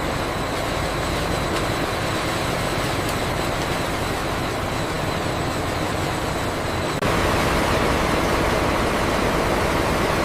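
Steady din of factory production-line machinery: an even, dense rumble and hiss with a faint high whine. It changes abruptly about seven seconds in to a slightly louder but similar machine noise.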